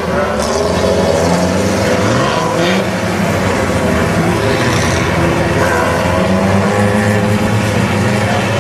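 Several vintage pre-war racing cars' engines accelerating through a hairpin bend, one after another, their engine notes overlapping and each rising and falling in pitch.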